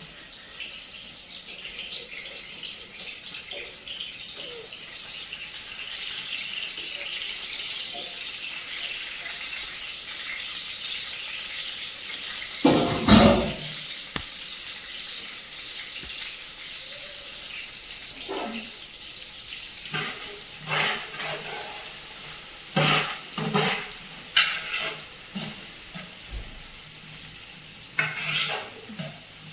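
Food sizzling in hot oil in a cooking pot, a steady hiss. Halfway through there is one loud knock, and over the last third comes a run of shorter sharp knocks, like a utensil stirring and striking the pot.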